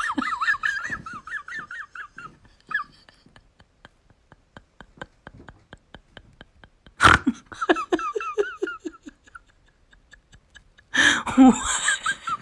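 Large grey dog howling in three wavering, yodelling bouts: one at the start, one about seven seconds in that slides down in pitch, and one near the end. A faint run of quick, evenly spaced clicks fills the gap after the first bout.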